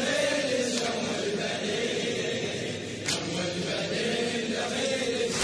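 A crowd of male mourners chanting a Shia latmiyya refrain in unison. Many voices blend into one steady, wavering chant.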